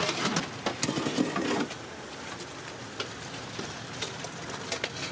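Steady roadside background noise with scattered clinks of steel serving pots, lids and ladles as food is dished out.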